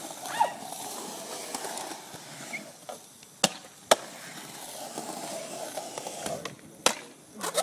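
Skateboard wheels rolling on smooth concrete with a steady rumble, broken by sharp clacks of the wooden deck: two close together around halfway and two more near the end.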